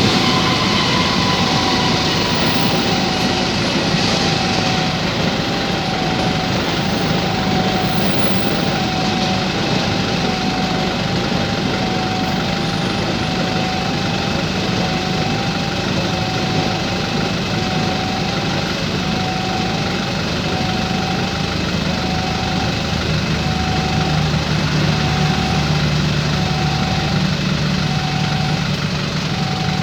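A railway level-crossing warning siren beeps a single high tone about every second and a quarter, over the steady rumble of a train passing the crossing. A low engine drone grows stronger about three-quarters of the way through.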